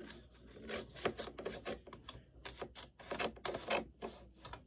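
Scissors snipping through paper in a quick, irregular run of short cuts.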